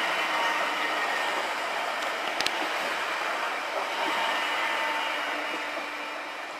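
PESA Elf electric multiple unit running past on the rails and moving away, a steady rolling noise with a faint whine and a quick double click about two and a half seconds in. The sound slowly fades near the end.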